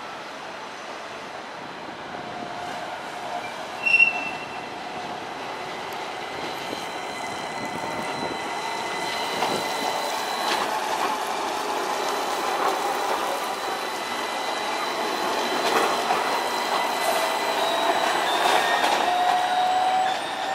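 Modern low-floor tram running on street track, its wheels squealing steadily as it rounds a curve. About four seconds in there is a single short, loud, high-pitched ding. Near the end a whine rises in pitch.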